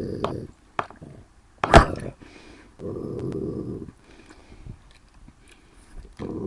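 A person imitating a wolf's warning growl: low growls lasting about a second each. About two seconds in there is one loud, sharp snap, an imitated bite.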